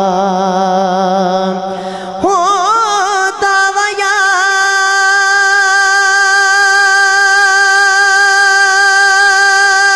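A young male voice singing a naat, without words, amplified through a handheld microphone. It holds a note, wavers up in a melismatic run about two seconds in, then holds one long high note with a slight vibrato.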